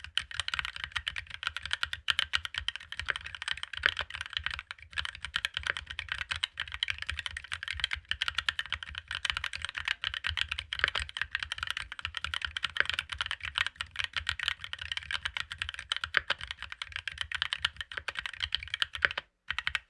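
Fast, continuous typing on a mechanical keyboard fitted with GMK Pulse Mito doubleshot ABS keycaps: a dense stream of key clacks that stops just before the end.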